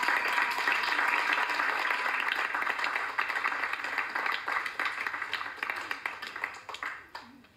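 A small audience applauding as the music stops, the clapping dense at first and dying away over several seconds.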